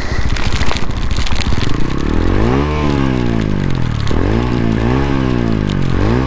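TVS Ronin 225's single-cylinder engine idling, then revved twice, each rev climbing and falling back over about two seconds, with a third rev starting near the end.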